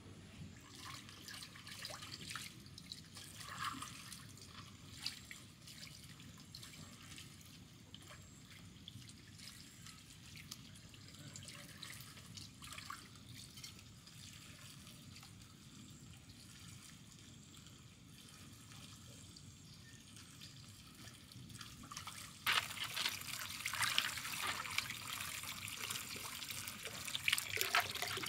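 Water dripping and splashing lightly while fruit is washed by hand; about three-quarters of the way in, a stream of running water starts and carries on.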